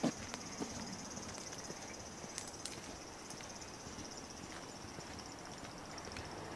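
Insects trilling steadily in a high, fast-pulsing buzz, with light footsteps tapping now and then underneath, the sharpest about at the start.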